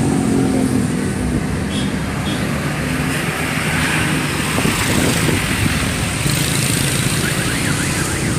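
Vehicle engines running, a steady low drone with no horn sounding.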